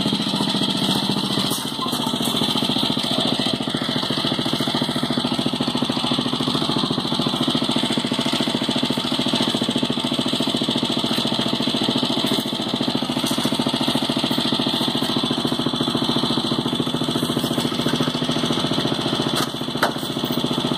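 Go-kart's small engine idling steadily, with a fast, even firing beat.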